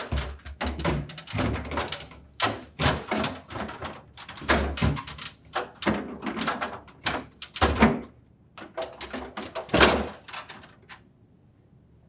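Plastic crisper cover assembly of an LG refrigerator knocking and clicking against the fridge's plastic liner as it is fitted back into the cavity: a busy run of thunks and clatters that stops about ten and a half seconds in.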